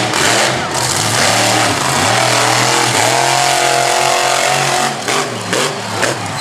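Monster truck engine running loud and revving, its pitch rising and falling, with a few sharp pops about five seconds in.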